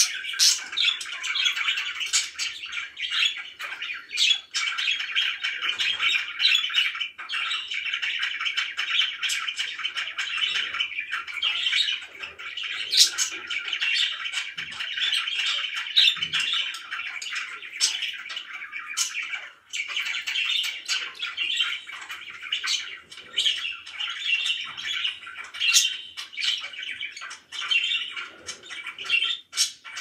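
A cage of pet budgerigars chattering and warbling continuously, with many short, sharp chirps and squawks standing out over the chatter.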